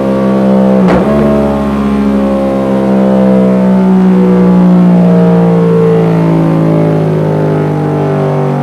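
Yamaha MT-07's 689 cc parallel-twin engine running at high revs through a Dominator aftermarket full exhaust. The pitch climbs slowly for a few seconds and then eases back, with a brief sharp crack about a second in.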